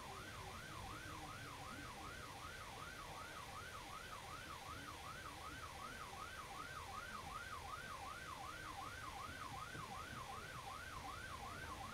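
Sheriff's patrol car siren in a fast yelp, its pitch sweeping up and down about three times a second, heard over a steady low road rumble through the patrol car's dash camera.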